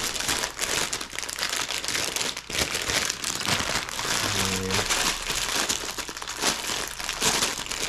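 Plastic LEGO parts bags crinkling continuously as they are handled and sorted by hand.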